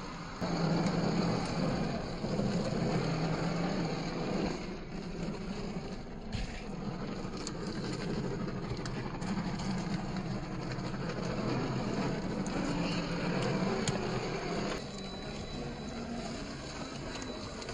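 Electric motor and geared drivetrain of a 1/10-scale RC crawler running under load on a rocky trail, a steady hum with scattered small clicks. It rises sharply about half a second in and eases off near 15 seconds.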